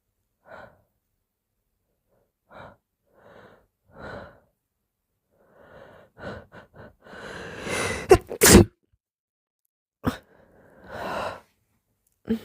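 A person working up to a wet sneeze: short catching breaths that grow louder and closer together, then the sneeze about eight seconds in, its loudest part two sharp blasts in quick succession. A sharp burst and a breathy exhale follow, with another short burst near the end.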